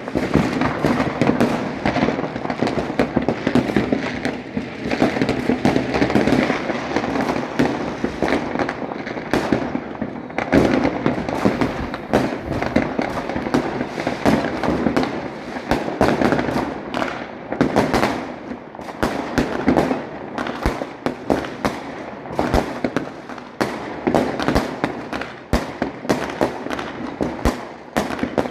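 Fireworks going off continuously: a dense, rapid crackle of many small bangs over a rolling rumble of explosions, with no gaps.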